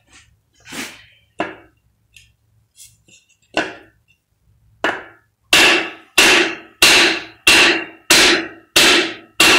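Sledgehammer blows on a wooden block, driving a cylinder liner out of a WD615 diesel engine block. A few lighter blows come first. Then, from about halfway, seven heavy, evenly spaced strikes follow at about one and a half a second, each with a short metallic ring.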